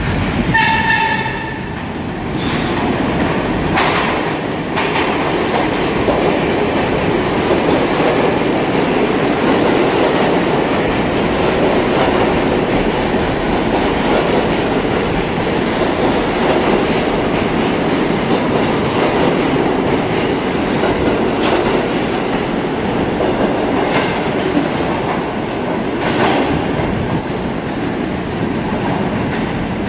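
New York City Subway train running through an underground station: a loud, steady rumble of steel wheels on rail with scattered clacks over the rail joints. A short pitched tone sounds about half a second in.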